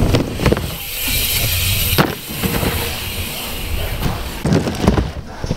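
A steady low rumble with a hissing surge about a second in, and several sharp knocks: one about half a second in, one at about two seconds, and two more near the end.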